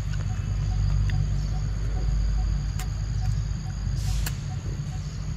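Macaque biting into a green mango, a short crunchy burst about four seconds in, over a steady insect shrill with a faint pulse about three times a second. A low rumble runs underneath and eases after the bite.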